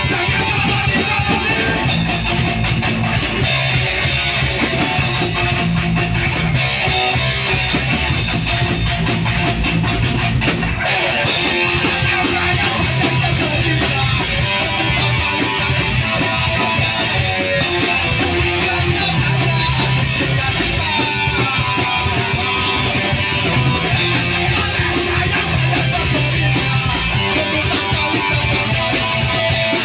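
Rock band playing live and loud: distorted electric guitar, bass guitar and drum kit running without a break, with a singer at the microphone.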